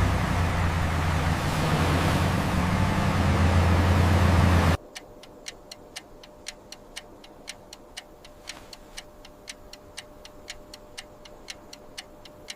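Large truck engine running, cutting off abruptly about five seconds in. After it comes a quiet, steady run of sharp ticks, about two to three a second.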